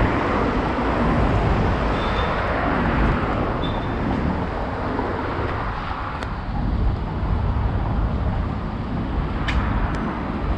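Steady outdoor background noise with a strong low rumble, broken by two short high chirps in the first few seconds and a few faint clicks later on.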